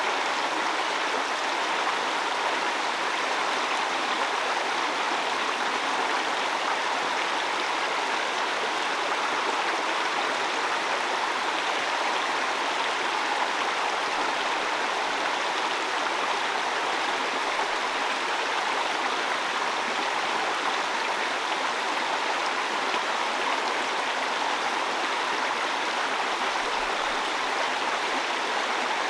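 Heavy rain falling steadily: an even, unbroken hiss with no separate drops, thunder or other events standing out.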